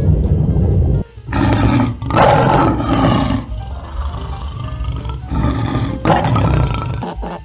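A big cat roaring twice, with long calls about a second in and again near the end, over background music with a low drumbeat at the start.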